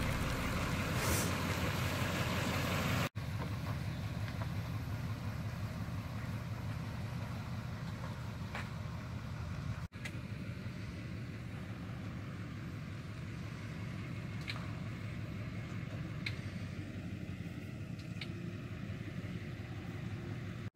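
Pickup truck engine running steadily while it tows a shed on a trailer, with a few faint short chirps later on.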